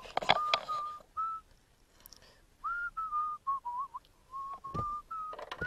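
A man whistling a tune: a string of short, clear notes with small slides between them. There are a few sharp clicks near the start.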